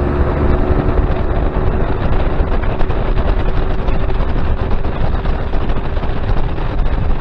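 A fishing boat's outboard motor running under way, mixed with rushing wind and water noise; the engine's steady tone fades out about halfway through.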